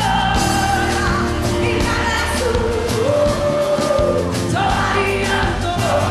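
Live pop band with drums, bass and electric guitars playing, and a woman singing long held notes into a microphone.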